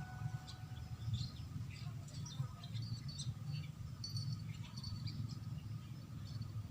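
Scattered short bird chirps over a steady low rumble of outdoor background noise.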